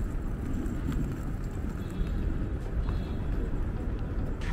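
Steady outdoor city noise, mostly a low rumble of street traffic, with a brief click near the end.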